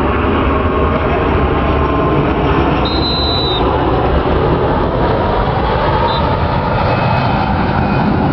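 Steady loud rumbling noise, with a short high steady tone about three seconds in and a briefer one about six seconds in.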